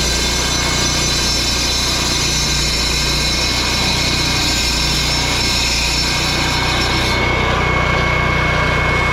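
Gas-powered concrete saw running steadily while wet-cutting joints in fresh concrete, the engine drone overlaid with a high gritty cutting hiss. About seven seconds in the hiss drops away while the engine keeps running.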